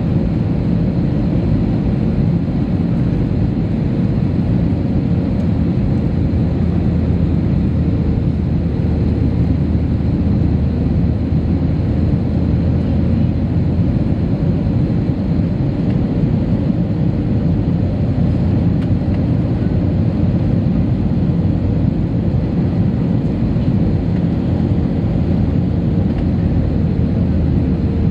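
Airliner cabin noise in flight: a steady low rumble of the engines and airflow past the fuselage, with a faint steady hum above it.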